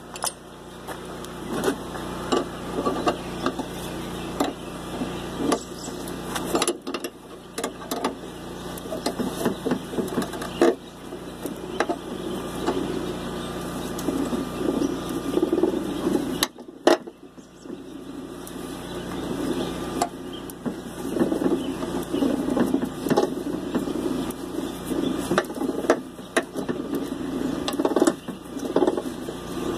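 Stick welding arc crackling as nuts are welded onto a steel pipe, over a steady low hum. The arc stops briefly twice, about 7 and 17 seconds in.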